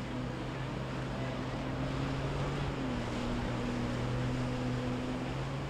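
Boat engine running steadily as a boat passes, a low hum that dips slightly in pitch about three seconds in, over wind and water noise.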